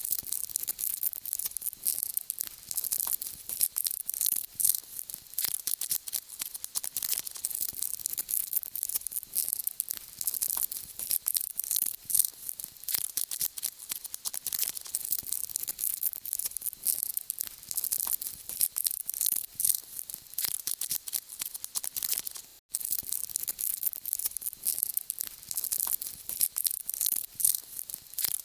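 Termites and ants crawling and chewing: a dense, continuous high-pitched crackle of tiny clicks, with a momentary gap about two-thirds of the way through.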